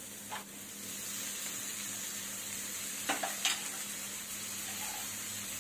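Spice paste sizzling and frying in a wok as diced tomatoes are tipped in and stirred, with a few light knocks of a spoon about three seconds in.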